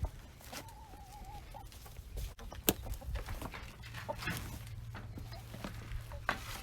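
Chickens clucking, one giving a wavering trilled call about half a second in, with scattered sharp clicks and knocks.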